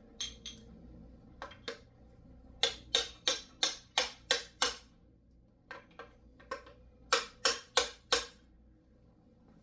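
Sharp metal-on-metal strikes, about three a second, in two runs (about eight blows, then five after a pause), with a few scattered single knocks: a hammer tapping on engine parts to knock them loose.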